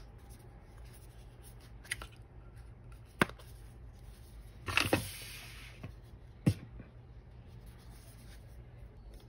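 Plastic Soundcore P30i earbud charging case being handled: three sharp clicks, about two, three and six and a half seconds in, and a brief rubbing about halfway through.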